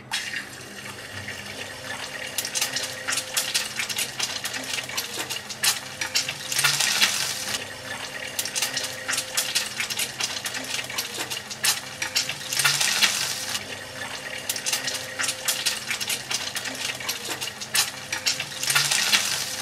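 An egg frying in hot oil in a frying pan: steady sizzling with dense crackling spatter, swelling louder a few times.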